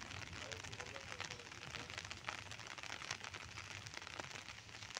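Light rain pattering steadily, a dense run of tiny ticks, over a faint low rumble.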